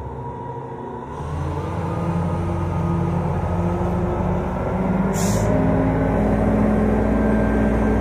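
Truck-mounted mobile crane's diesel engine running, picking up and growing louder about a second in, with one short hiss of air about five seconds in.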